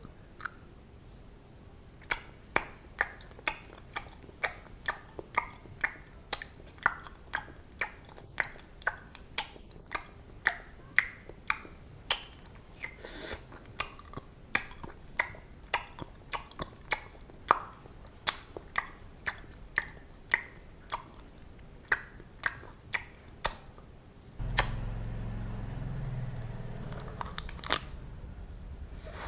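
Chewing gum close to the microphone: sharp wet clicks and snaps, about two a second. Near the end the clicking stops and a steady low rumble sets in.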